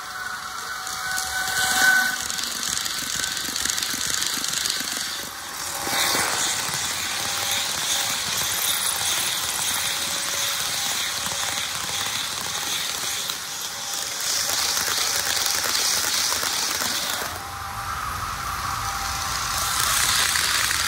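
HO scale model train running on its track: a steady rushing noise of wheels rolling on the rails with a faint motor whine. The level shifts a few times, around six and seventeen seconds in.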